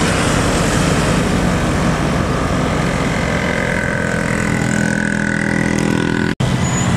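A heavy vehicle's engine running steadily with road noise. About six seconds in, all sound drops out for an instant.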